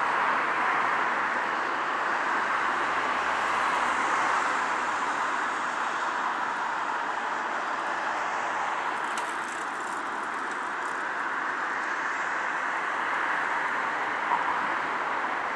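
Steady, even background noise of distant town road traffic.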